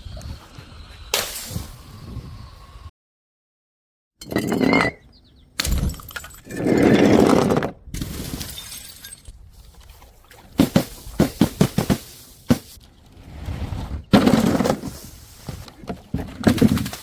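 Glass bottles thrown onto stairs, knocking and shattering in a series of separate takes. Near the middle a bottle knocks several times in quick succession, and there is a short gap of dead silence a few seconds in.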